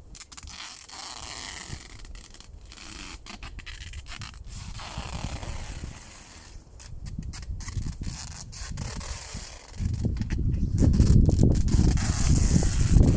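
Rubbing and rustling of material being worked by hand. A louder low rumble comes in about ten seconds in.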